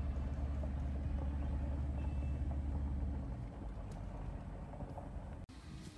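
Vehicle engine and driving noise heard from inside the cabin, a steady low rumble that drops in level about three seconds in, then cuts off abruptly about five and a half seconds in.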